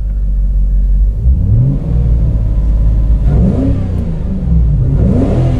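Volvo S80's 4.4-litre V8 through an aftermarket Becker exhaust, heard from inside the closed cabin: a low drone with the revs climbing and dropping three times.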